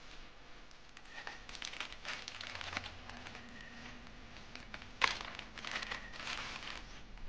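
Paper and plastic packaging being handled and pulled open by hand, crinkling in short runs, with one sharp crackle about five seconds in.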